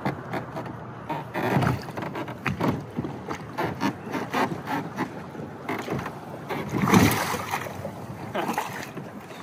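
Water slopping and slapping against the hull of a small mini pontoon boat as a person standing on its bow rocks it, mixed with knocks and clicks of shoes shifting on the hull; the loudest splash comes about seven seconds in.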